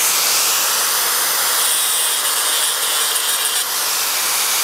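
Small angle grinder lightly grinding a MIG root weld on steel pipe: a steady high-pitched whine and hiss of the disc on the metal, easing a little near the end. It is grinding into piping porosity, a shrinkage hole where the weld was stopped in a wide gap, to see how deep it goes.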